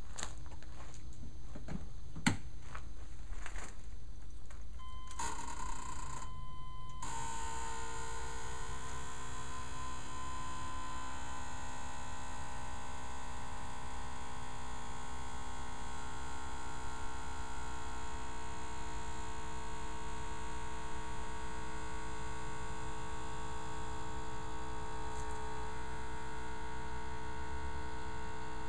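A few crunching steps on gravel, then about seven seconds in a small electric air compressor starts and runs with a steady hum, inflating the air bags that push the truck's homemade tag axle down onto the ground.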